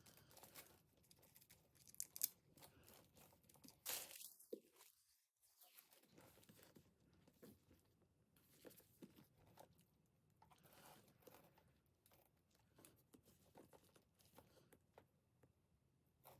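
Faint rustling and crinkling of packaging being handled during an unboxing, with scattered small crackles and a couple of sharper ones about two and four seconds in.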